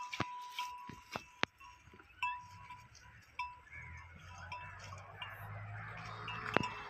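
Small bells ringing in short single strikes every second or so, with a few sharp clicks among them, around grazing calves. A low rumble rises in the second half.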